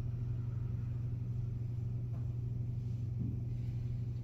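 A steady low hum that holds one pitch without change, with nothing else happening.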